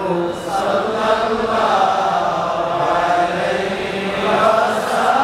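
A man chanting a slow devotional melody into a microphone, with long held notes that waver slightly in pitch.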